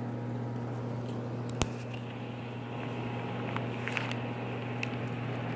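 A steady low mechanical hum runs throughout. A single sharp click comes about one and a half seconds in, and a few faint short ticks and chirps come later.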